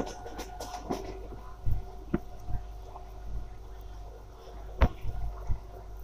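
A train in motion heard from on board: a steady low rumble with a faint steady hum, broken by scattered sharp knocks and rattles.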